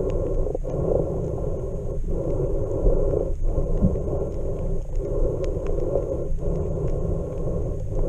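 Muffled underwater rumble picked up by a camera submerged in its waterproof housing. A steady dull wash breaks off briefly about every second and a half, with faint scattered ticks.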